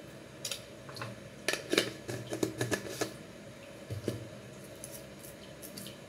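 Metal spoon clicking against a glass bowl while beating raw eggs, a quick run of clicks in the first three seconds, one more around four seconds and a few faint ones near the end.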